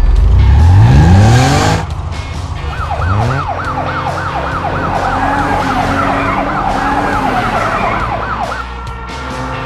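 Cartoon vehicle sound effects: an engine revs up loudly at the start and again briefly about three seconds in, then a siren wails rapidly up and down for about six seconds before stopping, over soft background music.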